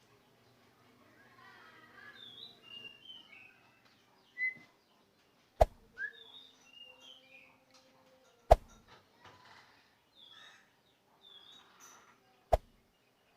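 Javan myna (jalak kerbau) calling with a run of short chirps and whistled notes. Three sharp clicks, a few seconds apart, are louder than the calls.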